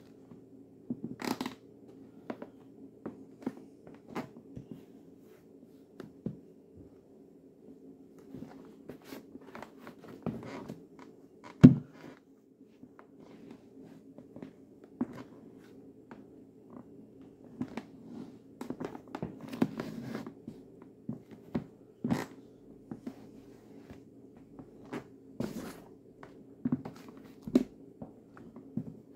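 Nike Air Max sneakers stomping and grinding a slice of bread on a wooden floor: irregular thuds, scuffs and squashing, with one much louder stomp about a third of the way in.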